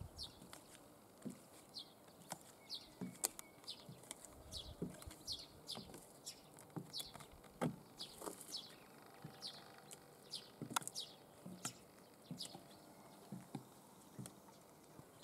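Platform high heels tapping on a concrete slab with slow, irregular steps, about one knock a second. A small bird gives short, falling chirps over and over.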